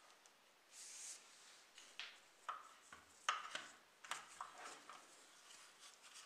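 Gloved hands handling a rusty die-cast Volkswagen model car: faint rubbing and scattered small metallic clicks and taps as it is turned over, with the sharpest click about three seconds in.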